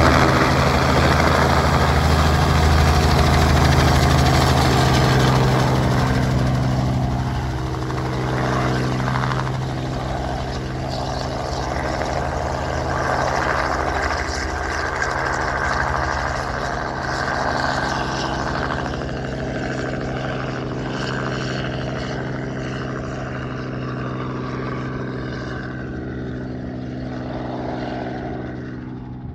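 Crop-spraying helicopter flying away: a steady hum of evenly spaced low engine and rotor tones under a broad whirr, fading gradually as it leaves.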